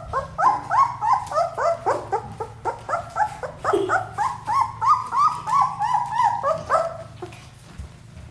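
Ten-day-old German shepherd puppies whining and squealing in a rapid string of short, high, falling cries, several a second, that stop about seven seconds in.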